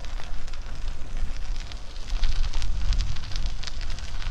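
Batavus Touring bicycle rolling over an unpaved path: the tyres crackle and crunch irregularly over loose ground, with wind buffeting the microphone as a low rumble.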